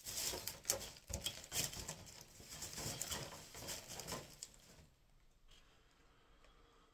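Clear plastic blister packaging crinkling and crackling as it is handled, an irregular rustle of small clicks that stops about five seconds in.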